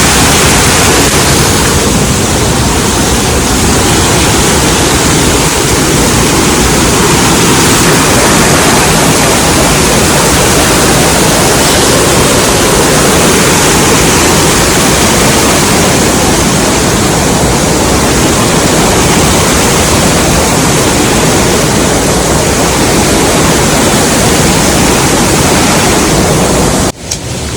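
A small waterfall falling close by: a loud, steady rush of water. It drops out abruptly near the end and comes back quieter.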